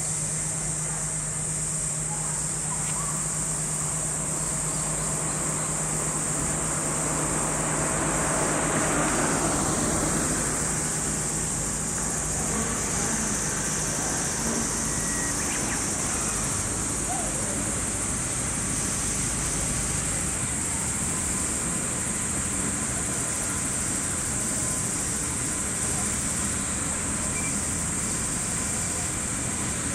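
Steady high-pitched chorus of summer cicadas throughout. A vehicle passes about eight to ten seconds in, and a low engine hum dies away a few seconds later.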